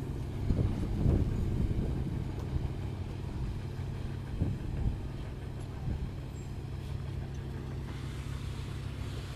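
An engine running steadily with a low hum, with a few knocks and thumps in the first two seconds and one more about four and a half seconds in.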